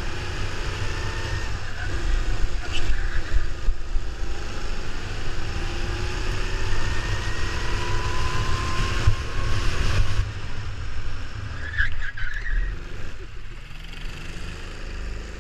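Go-kart engine running under throttle, its pitch rising and falling with speed, over heavy wind rumble on the microphone. The engine sound drops off about ten seconds in.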